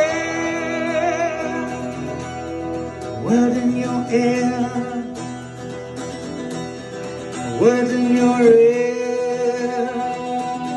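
Live duo of acoustic and electric guitar playing an instrumental passage. Long held lead notes with vibrato swell in about three seconds in and again about halfway through.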